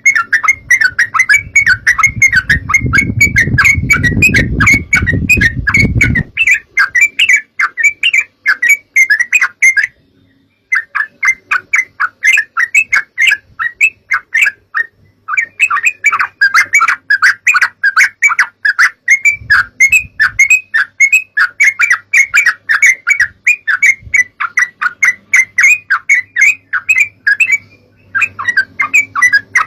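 Yellow-vented bulbul (trucukan) singing in a fast run of short chirps, several a second, with a brief pause about ten seconds in. A low rumble sits under the chirps for the first few seconds.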